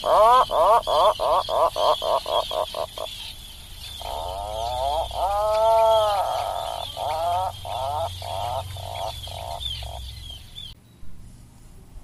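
Atlantic puffin calling: a drawn-out groaning note followed by a quick run of shorter notes that speed up, heard twice, then cut off abruptly near the end.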